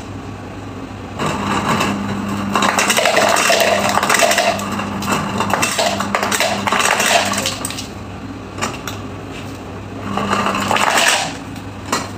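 Ice clattering out of a refrigerator's ice dispenser into a glass, the dispenser motor humming while it runs, for about six seconds, then a second shorter burst near the end.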